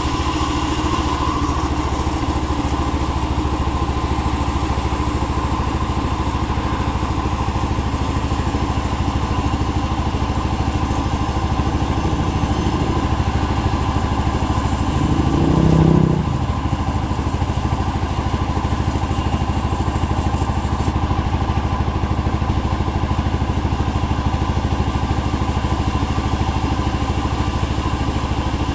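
Engine of a wood saw running steadily at an even speed, with a brief louder swell about halfway through.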